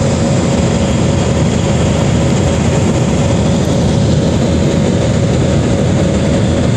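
Airbus A320 jet engines and rushing airflow heard inside the passenger cabin during the climb after takeoff: a steady, loud noise, heaviest in the low range, with a faint steady hum.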